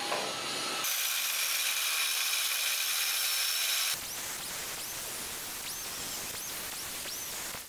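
Angle grinder with a cutting disc cutting steel plate: a steady hissing rasp that changes in character abruptly about four seconds in.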